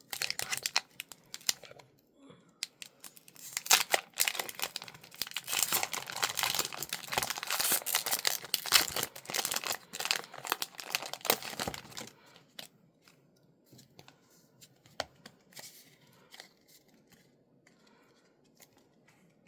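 A foil Pokémon booster pack wrapper being torn open and crinkled, with dense crackling for about twelve seconds. After that, only sparse faint rustles and clicks from handling the cards.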